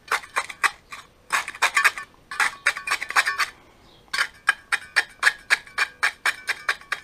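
A small steel trowel tapping against a linear drain's metal grating and channel edge while sand is packed along its side. It makes runs of quick metallic taps, about five a second, each with a short ring, broken by brief pauses.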